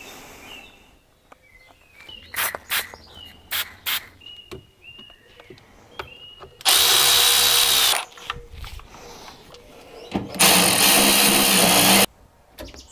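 Mazda MX-5 windscreen wiper motor run twice in short bursts of about a second and a half each, whirring loudly. It is being tested after its park-switch contact rings were cleaned, to check that it returns to its rest position. A few light clicks and knocks come before the first run.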